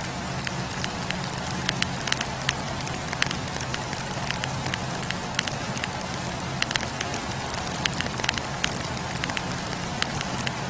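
Wood fire burning, with frequent irregular sharp pops and crackles over a steady hiss and a low rumble of the flames.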